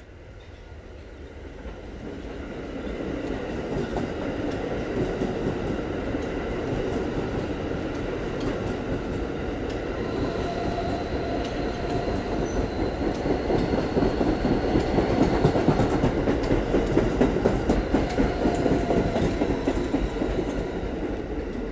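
R160 subway train on the N line approaching and running along the platform, its wheels clacking over rail joints under a steady whine. The sound builds over the first few seconds and is loudest about two-thirds of the way through, as the cars pass close by.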